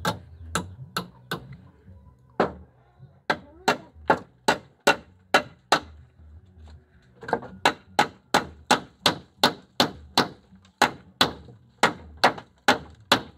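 Rhythmic knocking: sharp blows about two a second, in three runs with short pauses between them. The longest and steadiest run begins about halfway through.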